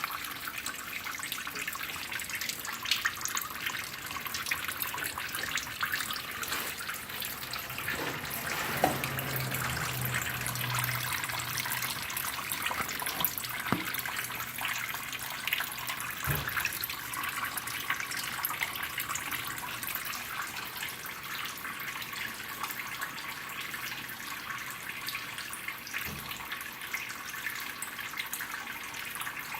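Water running steadily and trickling through the stacked growing trays of a fodder system, with scattered small drips. A brief low hum comes in about nine seconds in.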